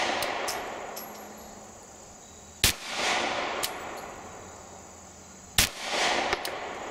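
Glock 43 9mm subcompact pistol firing two single shots about three seconds apart, each a sharp crack followed by a rolling echo.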